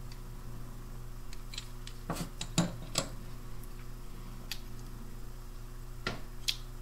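Small sharp metallic clicks and scrapes from working loose the bent metal tabs and top mica spacer of a 6AU6 pentode's electrode assembly by hand: a cluster of clicks about two to three seconds in and two more near the end.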